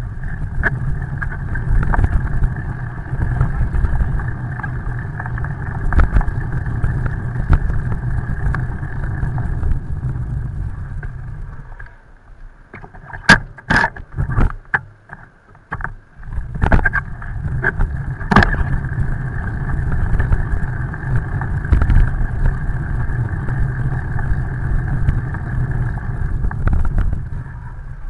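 Steady road noise on a wet bridge deck: a low hum with a hiss above it. It drops off for a few seconds around the middle, where a few sharp knocks stand out, and then returns.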